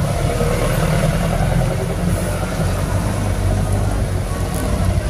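Motorcycle engine running steadily at low speed, a constant low drone with road noise.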